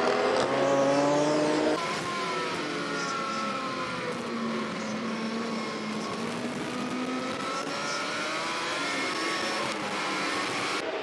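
Racing superbike engine at high revs, louder for the first couple of seconds, then heard from onboard with its pitch repeatedly falling and rising as the revs change.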